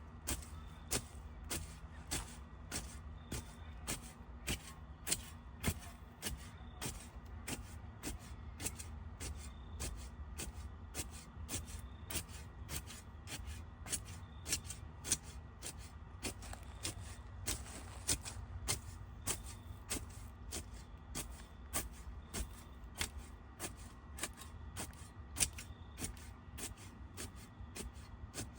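Carrot ferns being chopped into a garden bed: a steady run of sharp snips, about two a second, over a low steady rumble.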